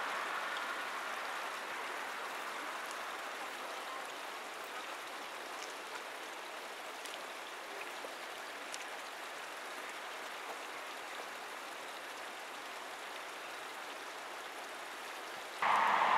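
Shallow river water flowing over a pebble bed, a steady gentle babble. About half a second before the end it switches abruptly to a louder rushing noise.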